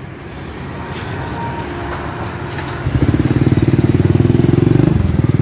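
An engine running, with a low hum that becomes much louder about three seconds in and turns into a fast, even pulsing.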